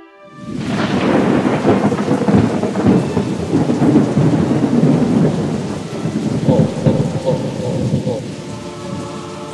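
Thunderstorm sound effect: thunder breaks in suddenly about half a second in and rumbles on over heavy rain, easing near the end as music comes back in.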